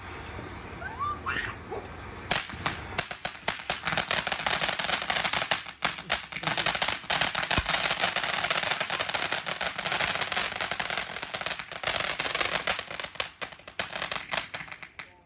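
Ground fountain firework hissing, then crackling densely and rapidly from about two seconds in as it throws out crackling sparks. It stops suddenly near the end.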